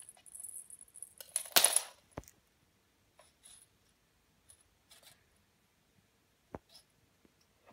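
The small jingling end of a cat wand toy rattling and clinking on a wooden floor as a kitten bats and bites at it. One loud rattle comes about a second and a half in, then only scattered small clicks and taps.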